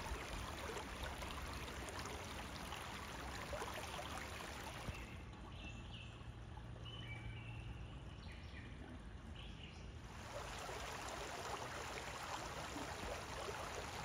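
Shallow creek running over stones, a steady rushing and babbling of water. For about five seconds in the middle the water sound drops to a quieter stretch with a few short chirps.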